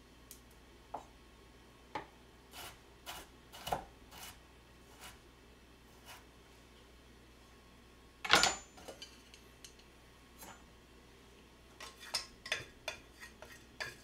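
Irregular knife strokes on a plastic cutting board as carrots are sliced and cut into strips. One louder knock comes about eight seconds in, and a quick run of light taps and clinks follows near the end.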